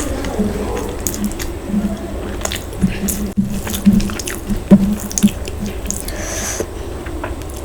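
Close-up eating sounds of mutton curry and rice: irregular wet smacks, squelches and small clicks of chewing and handling the food.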